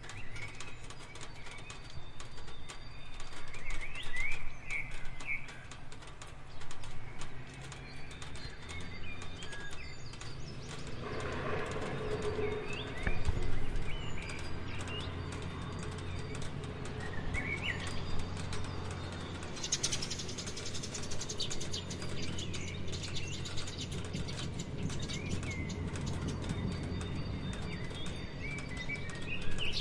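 Rain falling steadily in patters and drips, with small birds chirping in short calls now and then. About two-thirds of the way in a brighter hiss joins, as the rain comes down harder.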